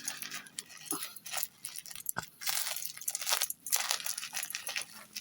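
Irregular crinkling and rustling of plastic packaging and bubble wrap being handled while a motherboard is unpacked, with a sharp click about two seconds in.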